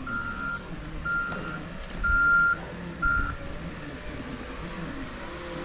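Vehicle reversing alarm beeping, about one half-second beep each second, stopping a little past halfway, over a low engine rumble.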